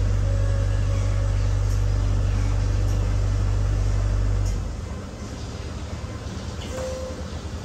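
Passenger boat's engine running with a steady low rumble, which eases off about four and a half seconds in and settles to a quieter drone.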